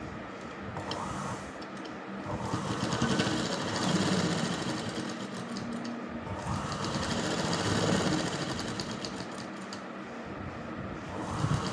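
Domestic sewing machine running a straight stitch along a double-folded hem in cotton fabric, a fast, steady rattle of needle and feed that swells and eases a few times as the pace changes.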